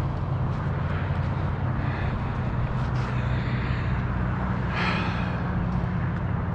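Steady low, engine-like hum over a noisy haze, like road traffic, with a brief hiss about five seconds in.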